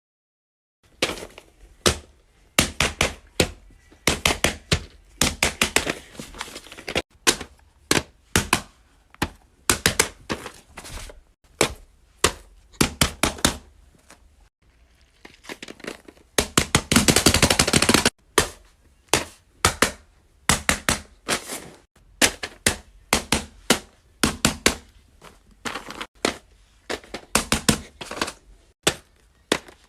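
Fidget toys being clicked and tapped: many sharp clicks and knocks in irregular quick clusters, with a loudest spell of fast, dense rattling around the middle.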